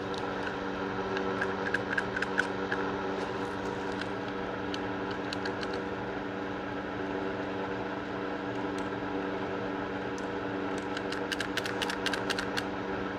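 Light clicks and taps of handgun parts being handled during cleaning, bunched about two seconds in and again near the end, over a steady background hum like a fan.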